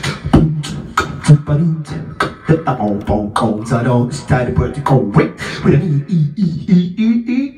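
Live beatboxing into a handheld microphone: a fast run of mouth-made drum hits, with pitched vocal notes woven between them.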